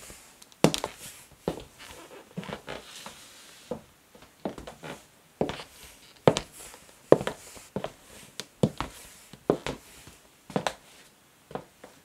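Black stiletto high heels walking slowly on a wooden floor. The heels click sharply, about one step a second, at an unhurried, even pace.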